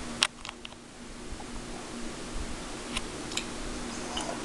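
A person sipping beer from a glass and tasting it: a sharp click about a quarter second in, then a few faint mouth clicks, over a faint steady hum.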